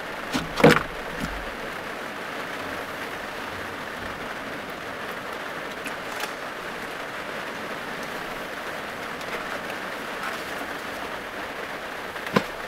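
Steady rain on the roof and body of a small van, heard from inside. A few hard knocks from a wooden fan panel being handled stand out over it, the loudest just under a second in and another near the end.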